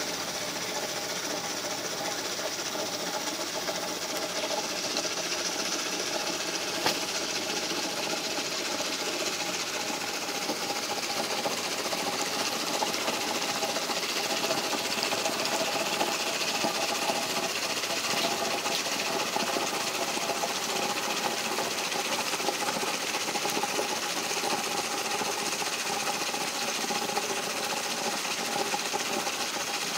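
Siemens dishwasher running: a steady mechanical noise with several held tones and a fast, fine rattle, and a single tick about seven seconds in.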